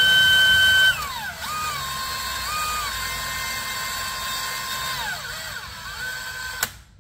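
DeWalt cordless drill boring a hole in a block of aluminum, the bit lubricated with oil. The motor whine starts high and loudest, drops lower about a second in and holds there, wavering, as the bit cuts. It rises again near the end and stops suddenly.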